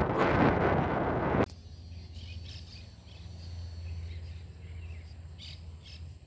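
Wind buffeting the microphone, cut off suddenly about a second and a half in. Then quiet outdoor ambience with scattered faint chirps over a low steady hum.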